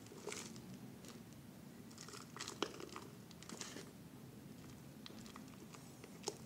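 Plastic bottle being handled, giving faint crinkling and crunching in short scattered bursts, with one sharp click about two and a half seconds in.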